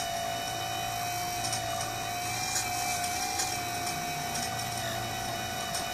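Hydraulic pump of a 1:14 scale RC Komatsu PC800 excavator whining steadily at a high pitch while the arm and bucket dig.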